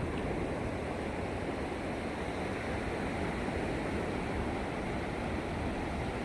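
Sea surf: a steady, even wash of waves with no single break standing out.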